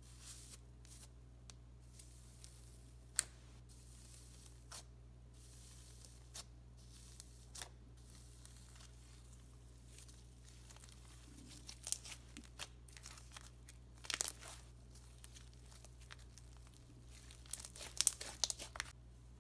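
Clear-glue slime with gold leaf sheets being pressed, poked and stretched by hand: scattered faint clicks and crinkles, with clusters of crackling pops, the densest near the end as the slime is pulled and stretched. The slime is still full of air bubbles.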